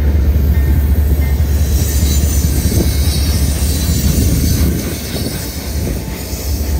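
Freight train rolling past, a steady heavy rumble of wheels on rail with a high hiss of wheel squeal that rises about two seconds in.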